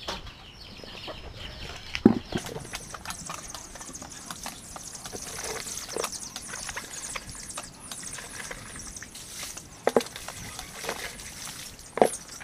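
Knocks and clatter of a bucket being handled and rinsed at a cast-iron hand water pump, with water splashing. A few sharp knocks stand out, the loudest about two seconds in, near ten seconds and near the end.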